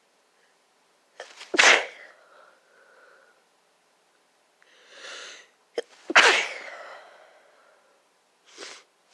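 A sick person sneezing twice, both sneezes loud and sudden, the second coming about four and a half seconds after the first.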